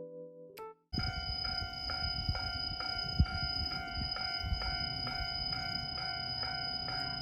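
Japanese railroad crossing alarm bell ringing, a metallic clang repeated about twice a second, starting suddenly about a second in over a low background rumble, with one brief knock about three seconds in.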